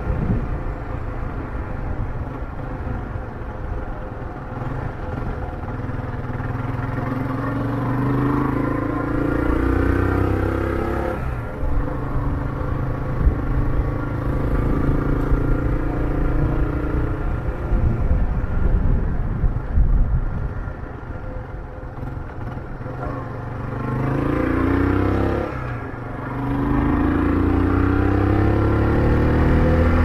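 Motorcycle engine under way, pulling up through the gears: its pitch climbs in each gear and drops at the shifts, about eleven seconds in and again near the end.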